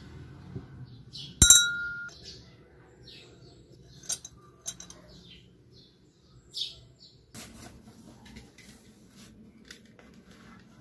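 A glass drinking cup clinks once, sharply, about a second and a half in, and rings briefly.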